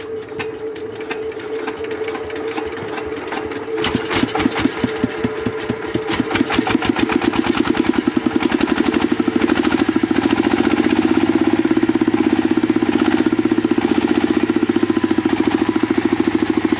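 Diesel engine being started. First a steady whine with a few scattered ticks. About four seconds in the engine fires, and its knocks quicken into a steady, fast chug as it settles into running.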